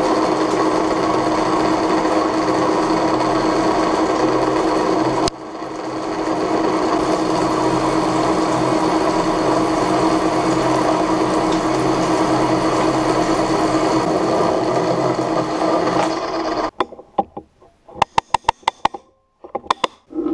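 Metal lathe running steadily as a cutting tool turns an aluminium cup, a constant-pitched machine sound that dips briefly about five seconds in. Near the end the running sound breaks off into short gaps and a quick series of sharp clicks.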